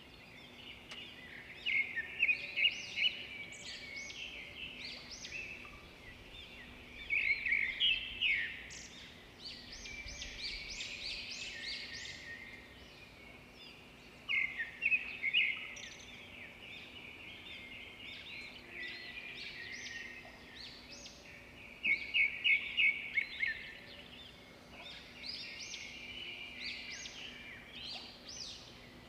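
Songbirds singing in repeated bouts of quick, high chirping notes, about every few seconds, over a faint steady background noise.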